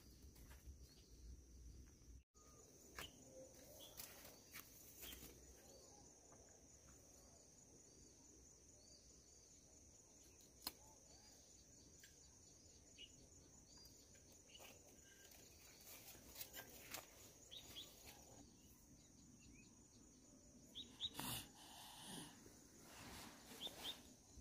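Near silence: faint outdoor ambience with sparse bird chirps over a steady high-pitched hum, and a few sharp knocks near the end.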